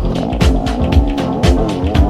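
Background music with a steady beat: a kick drum about twice a second under quicker hi-hat ticks, with a wavering melody line over it.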